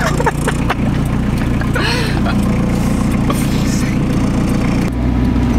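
Talbot Express van's engine running, heard from inside the cab while driving; the engine note changes about five seconds in.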